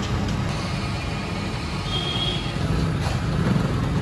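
Low, steady rumble of idling motor-vehicle engines, with a short high-pitched tone about two seconds in.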